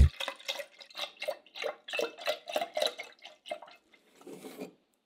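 Milk pouring from a carton into a glass measuring jug, glugging in a quick run of short pulses, about three or four a second, that stops after about three and a half seconds.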